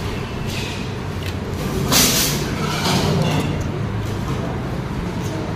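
A vehicle engine running steadily, with a short loud hiss about two seconds in.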